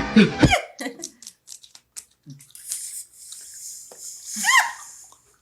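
Scattered knocks and rustling of a scuffle, with a short high squeal that rises and falls about four and a half seconds in.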